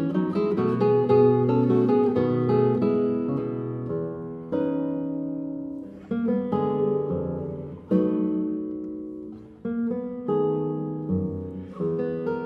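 Solo nylon-string classical guitar playing a classical piece: plucked melody over bass notes. Chords and notes are struck, ring out and fade, with a fresh attack every second or two in the later part.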